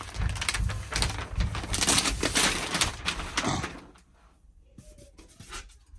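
Rustling and scraping from handling packaging and the computer, about three and a half seconds, then a few light clicks.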